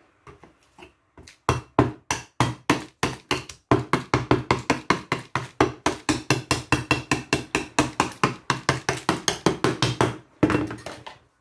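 A broad metal painting knife dabbed and scraped rapidly through wet acrylic paint on paper, in quick strokes of about four a second, with one longer scrape near the end.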